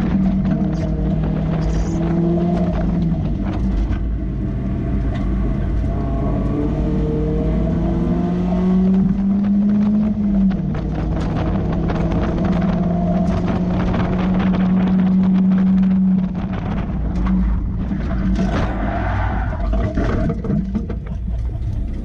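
Mazda Miata's four-cylinder engine pulling hard on track. Its pitch climbs, drops sharply at an upshift about ten seconds in, holds steady, then falls away after about sixteen seconds as the car slows to a stop. Wind buffeting in the open cockpit runs underneath.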